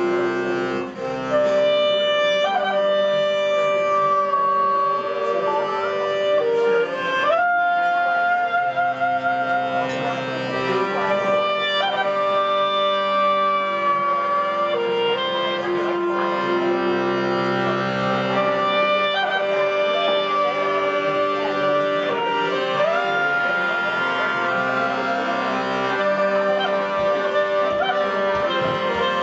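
Live folk-style band of clarinet, accordion and acoustic guitar playing a tune, the clarinet carrying the melody in long held notes with a couple of upward slides over the accordion's chords.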